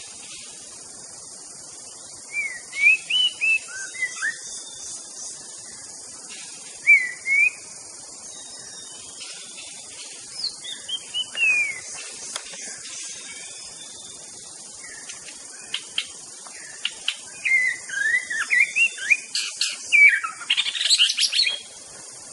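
White-rumped shama singing: short, varied whistled phrases of quick rising and falling notes, coming in bursts with pauses between them, the densest and loudest run of song near the end.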